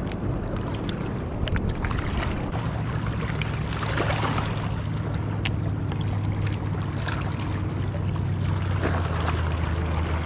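A boat engine droning steadily over the water, its pitch dropping a little about eight seconds in, with wind and water noise and a few sharp clicks.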